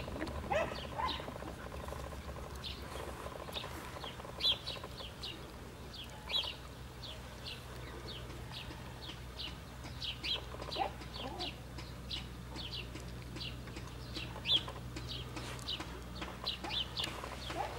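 Small birds chirping continually, with many short high chirps, while a chicken clucks a few times, about half a second in and again around eleven seconds. A low steady hum runs underneath.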